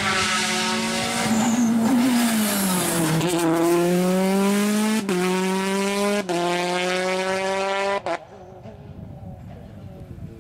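Peugeot 208 T16 rally car's turbocharged four-cylinder engine. The revs fall as it slows, then it accelerates hard through three quick upshifts, the pitch climbing and dropping back at each change. The sound drops away suddenly about eight seconds in.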